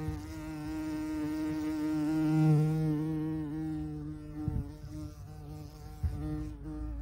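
Bumblebee buzzing in flight: a steady low hum whose pitch wavers slightly, loudest a couple of seconds in.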